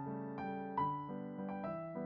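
Background music: a soft piano-like keyboard playing a melody over held chords, a new note about every half second.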